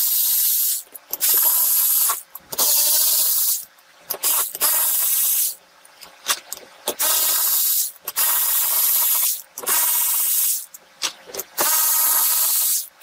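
Power ratchet spinning the cylinder-head bolts out of a Craftsman 5.5 hp L-head mower engine, run in about eight bursts of roughly a second each with short pauses between, each a steady hiss-like whir.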